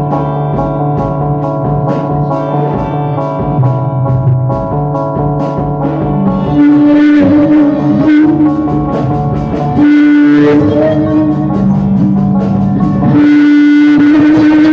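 Band music: a drum kit keeping a steady beat of about three cymbal strokes a second under long held guitar notes and a moving bass line.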